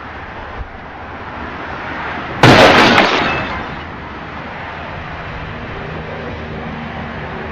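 Vehicle collision: a sudden loud crash of impact and breaking glass about two and a half seconds in, its clatter dying away over about a second. Steady traffic noise runs underneath.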